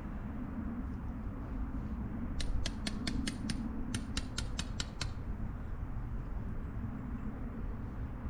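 Two quick runs of sharp, evenly spaced clicks, about six in each at roughly five a second, over a steady low rumble.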